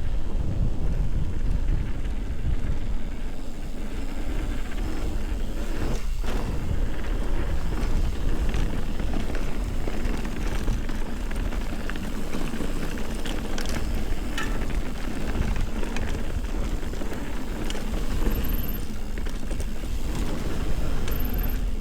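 Ibis Ripley full-suspension mountain bike riding down a dirt singletrack: steady rumble of tyres over the trail and wind on the microphone, with scattered clicks and rattles from the bike.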